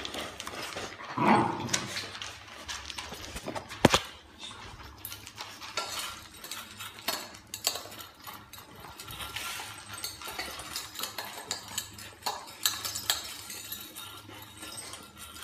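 Several dogs eating together from one pink plastic food bowl, the bowl and kibble clinking and knocking against the floor as they jostle. A brief louder pitched sound about a second in and a sharp click near four seconds stand out.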